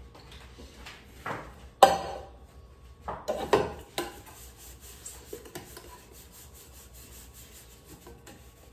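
Aluminium kitchen pot being handled and wiped with a cloth dish towel. A sharp metallic clank comes about two seconds in, then several quicker knocks and clatters a second later, then fainter rubbing and scraping of cloth on the metal.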